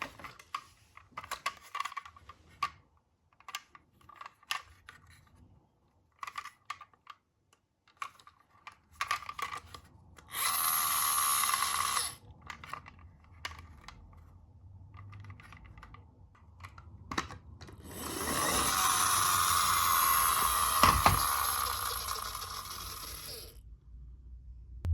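Toy minicar wheels whirring as the cars run down a ramp, twice: a short run of about two seconds about ten seconds in, and a longer run of about five seconds later on, each stopping abruptly. Before that, scattered light clicks and knocks of plastic and metal toys being handled.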